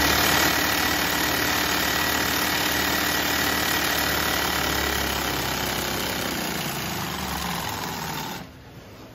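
Singer industrial sewing machine running at speed, stitching a long decorative seam through denim. It starts abruptly, runs steadily for about eight seconds, sags slightly in pitch and stops about a second before the end.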